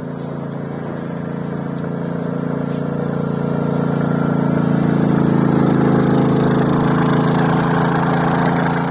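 CGM3300i inverter generator running steadily at an even pitch, growing louder over the first five seconds or so and then holding level.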